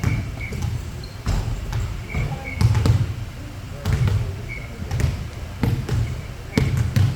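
Basketballs bouncing on a gym floor in irregular thuds, several a few seconds apart, mixed with short high squeaks.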